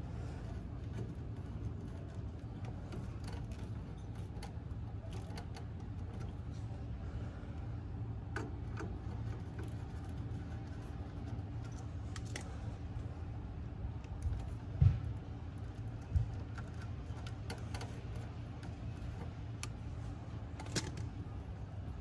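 Small clicks and scrapes of a screwdriver working wire terminals on an air conditioner's control board, over a steady low rumble, with two dull thumps a little past the middle and a sharper click near the end.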